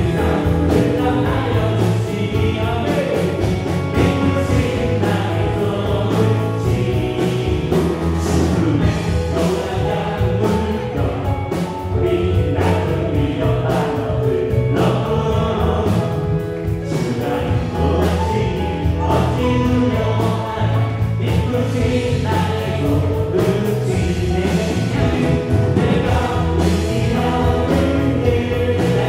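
Live worship band playing a gospel praise song on electric guitar, electric bass, drum kit and Korg Triton and Yamaha Montage keyboards, with voices singing along.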